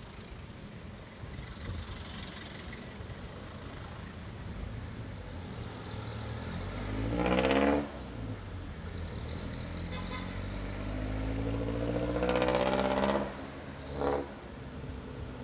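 Street traffic with a motor scooter's engine rising in pitch as it accelerates: once briefly near the middle, then in a longer climb, followed by a short, louder burst about a second later.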